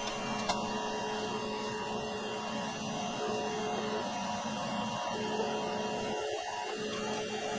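Steady machine hum and whir, with a single light click about half a second in.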